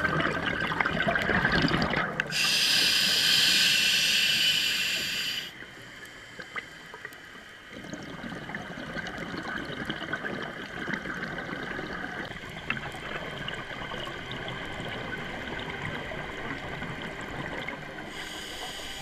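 Scuba diver breathing through a regulator underwater: a rush of exhaled bubbles, then a high hiss of inhaled air for about three seconds, then more bubbling and water noise.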